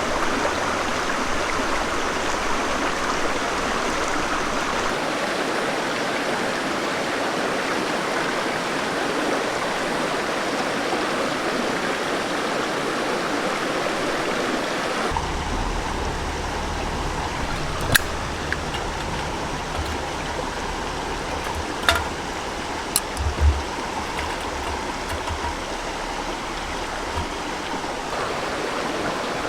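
River water rushing in a steady flow. About halfway through the sound shifts to a slightly quieter rush with a low rumble, and a few short clicks come in the second half.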